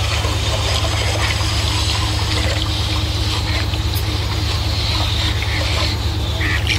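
Houseboat's engine running with a steady low drone, water rushing and trickling along the hull.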